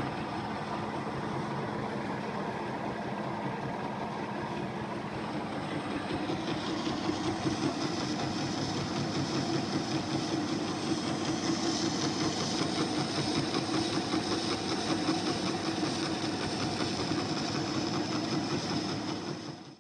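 MS.125 metal lathe running under power with a steady mechanical drone and a fast fine rattle of its drive. About six seconds in it gets louder and fuller, then stops abruptly at the end.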